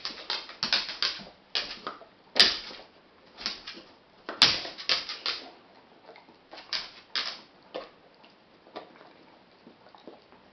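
A Bearded Collie crunching dry noodles: crisp cracks and clicks in irregular clusters, loudest about two and a half and four and a half seconds in, thinning out in the second half.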